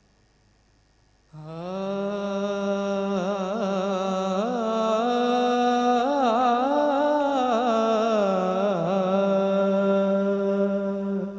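A young man's solo voice singing a hamd, an Urdu devotional hymn praising God, without accompaniment. After about a second of near silence he opens with one long held note, embellished with wavering ornaments, which fades away near the end.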